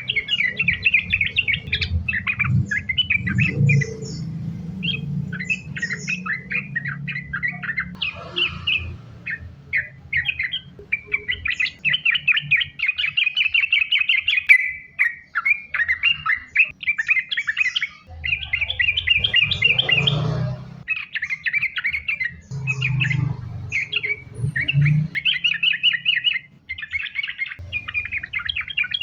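Yellow-vented bulbul (trucukan) singing without pause, a fast, chattering run of short notes strung one after another. This is the continuous "gacor" song used as a lure to get other bulbuls to sing. A low rumble comes and goes underneath.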